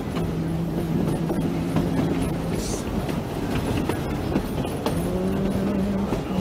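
Passenger coach of a steam excursion train rolling along the track: a steady rumble with scattered clicks from the wheels and running gear. Low held notes sound over it in the first half and again near the end.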